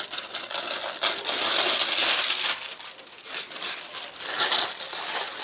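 Plastic roasting sleeve crinkling and rustling as it is cut open with scissors and pulled back from the baked chicken and vegetables. The crinkling is loudest about two seconds in.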